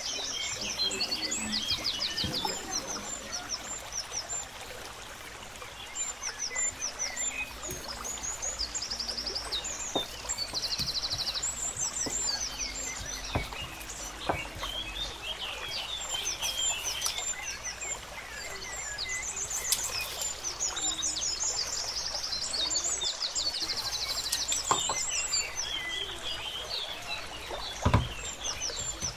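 Many small birds chirping and trilling in quick repeated phrases over a steady hiss like running water, with a few faint knocks.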